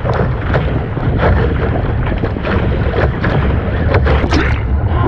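Wind buffeting the microphone aboard a sailing boat, a heavy steady rumble, with irregular splashing of water against the boat.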